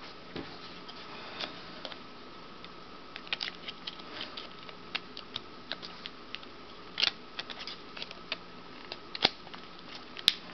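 Small plastic clicks and taps from handling an HTC Mogul phone as its battery cover is fitted and pressed back into place, with a few sharper snaps in the second half, over a faint steady hum.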